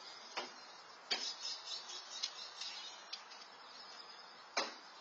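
Outdoor ambience through a security camera's microphone: a steady faint hiss broken by short, sharp chirps and clicks. There is one click just after the start, a cluster of high chirps from about one to three seconds in, and a single strong click near the end.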